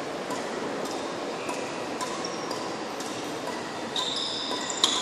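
Badminton hall sounds: a steady background hubbub with scattered sharp clicks of rackets striking shuttlecocks, and short high squeaks of shoes on the court floor near the end.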